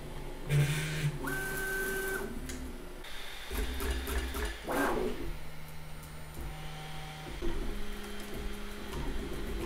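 Bambu Lab A1 3D printer changing filament. Its stepper motors whine in a series of steady tones that jump in pitch as the toolhead moves, with a sharp clack about half a second in as the filament is cut, before the old filament is purged.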